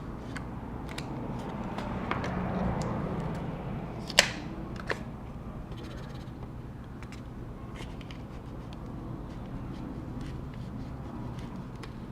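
Small hand tool scraping and clicking against a laptop's glued battery cells and plastic, with one sharp snap about four seconds in and a lighter click just after. A steady low hum runs underneath.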